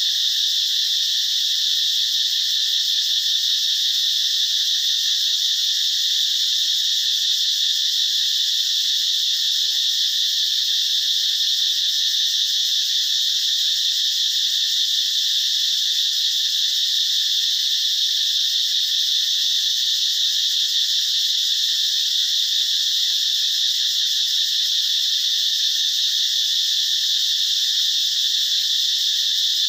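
A steady, high-pitched chorus of calling animals: one unbroken drone with no low tones.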